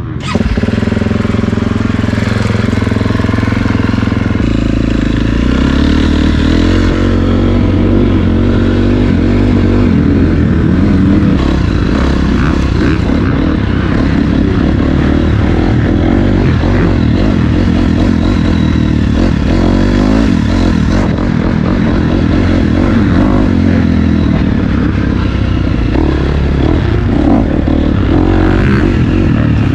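KTM four-stroke single-cylinder motocross bike ridden hard over a dirt supercross track, the engine revving up and down as the throttle is worked through the jumps, heard up close from a camera on the bike.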